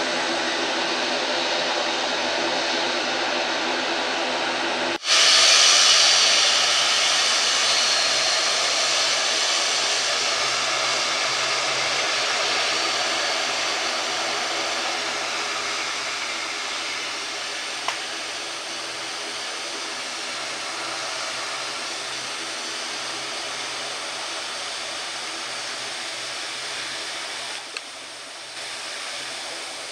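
ATR 72 turboprop airliner's engines running on the ground as it taxis and turns: a steady propeller hum under a turbine hiss. It becomes abruptly louder about five seconds in, then slowly fades.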